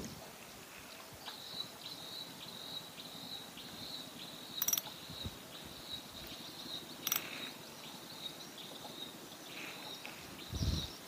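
Quiet river ambience with a high chirping that repeats a few times a second. It is broken by two sharp clicks as a spinning rod and reel is picked up and handled in the boat, and a low thump near the end.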